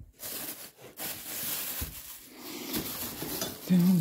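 Plastic bags rustling and crinkling as a hand rummages through a cardboard box of wrapped car parts, with a few soft knocks of parts and cardboard. A man's voice comes in near the end.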